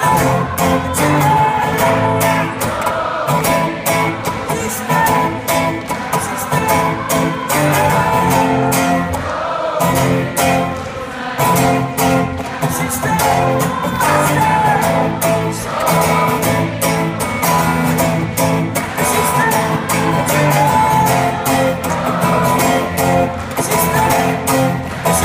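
Audience singing together in many voices over a strummed acoustic guitar, with a steady clapped beat running through it.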